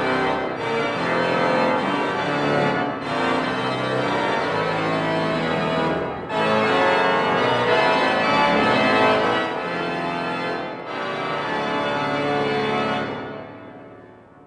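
The grand organ of Notre-Dame de Paris playing a fanfare on its reed stops: loud, full chords in short phrases with brief breaks. The last chord dies away in the cathedral's long reverberation near the end.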